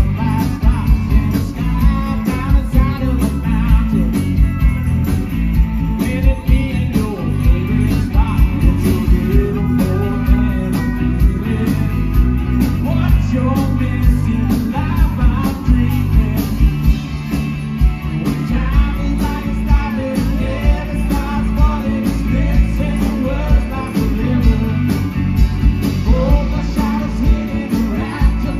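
Live country-rock band playing through a PA: singing over electric guitar, keyboard and a steady drum beat, heard from the crowd.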